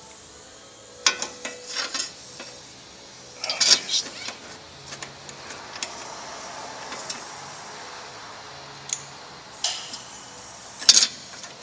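Scattered metallic clinks and clatters of hand tools and screws being handled while a rear diffuser's brackets are fitted, in short clusters about a second in, a few seconds in, and loudest near the end.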